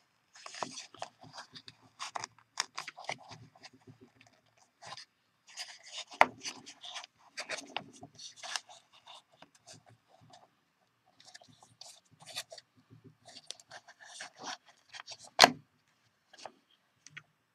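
Plastic throttle-lever unit from a John Deere D155 lawn tractor being handled and pressed back together: a run of small plastic clicks, rubs and scrapes, with one sharper click near the end.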